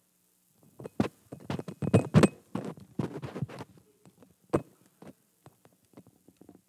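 Knocks, taps and clatter of objects being handled on a wooden pulpit top, close to the pulpit microphone. A quick cluster of knocks comes in the first few seconds, then one louder knock about four and a half seconds in, then a few faint ticks.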